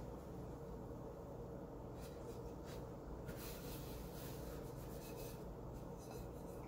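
Paper towel wiping a non-stick frying pan dry: a few faint scuffing strokes over a steady low room hum.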